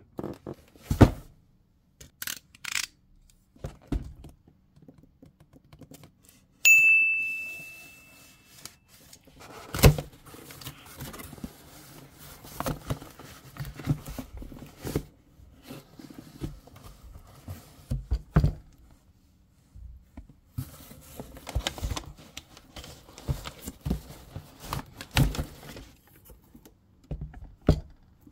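A cardboard shipping box being handled and opened by hand: taps and knocks on the box, then rustling and tearing of cardboard and packaging as the contents are pulled out. A single ringing ding about seven seconds in fades away over a couple of seconds.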